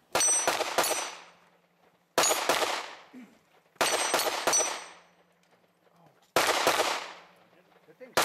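Pistol-caliber carbine fired at steel targets in quick strings of two to four shots, one string about every two seconds. Each string is followed by a fading echo, with a faint ring of struck steel after the first strings.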